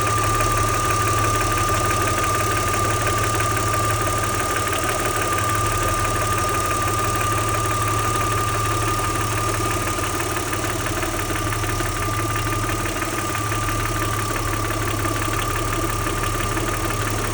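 Audi 80's 2.6-litre V6 engine idling steadily with a rapid, even clacking tick that the owner questions as possible knocking ('Klackern, Nageln?'). A steady high whine runs over it.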